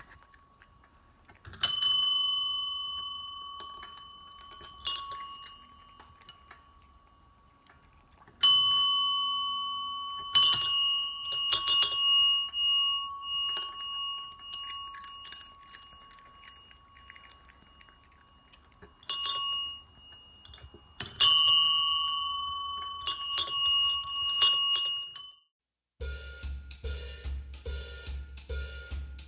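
Chrome desk bells (service bells) rung by cats, about a dozen dings, each struck sharply and ringing out and fading over a few seconds, some coming two or three in quick succession: the cats ringing for their food. About 26 seconds in, music with a steady beat takes over.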